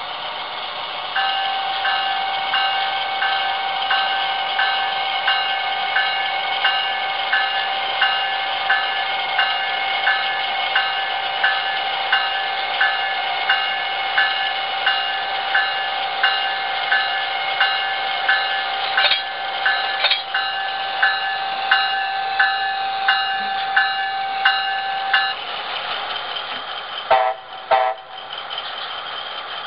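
HO-scale Siemens Charger SC-44 model's on-board sound system running a steady locomotive hum, with its bell ringing about one and a half times a second as the locomotive backs down to its train. The bell stops near the end, followed by a few short horn toots.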